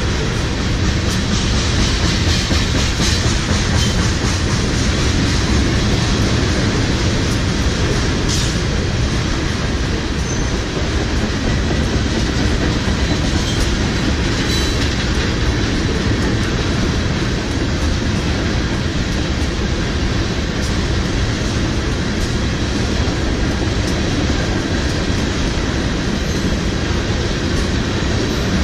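Union Pacific ethanol unit train's tank cars rolling past: the steady, even rumble of steel wheels on rail.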